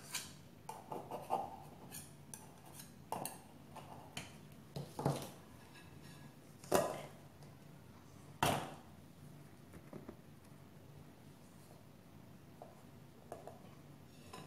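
A knife clinking and scraping against an aluminium tube cake pan as the baked cake is loosened from its sides, in a string of small clicks. Then come two louder knocks of the pan and a plate, about seven and eight and a half seconds in, as the pan is turned over onto the plate, followed by a few faint ticks.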